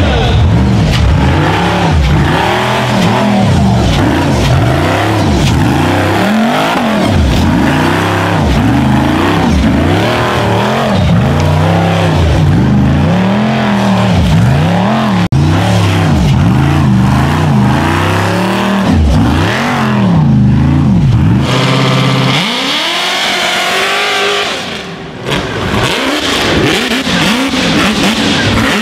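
Rock bouncer race buggy's engine revved hard up and down over and over, about once a second, under load as it claws up a steep dirt hill climb. The lowest tones drop away about two-thirds of the way through, with a brief dip in loudness shortly after, before the revving carries on.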